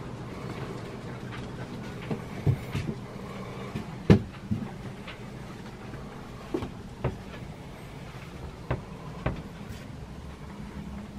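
Scattered knocks and thumps inside a small wooden yacht cabin, about nine in all with the loudest about four seconds in, over a low steady hum.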